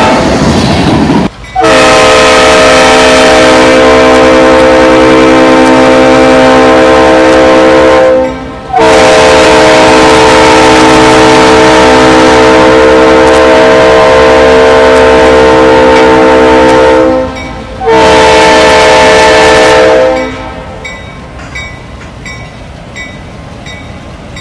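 Diesel freight locomotive's air horn sounding a chord of several notes: two long blasts and a short one, the start of the long-long-short-long grade-crossing signal. It opens with about a second of loud rumble from locomotives passing close, and after the blasts the train rumbles on with a faint regular dinging of the crossing bell.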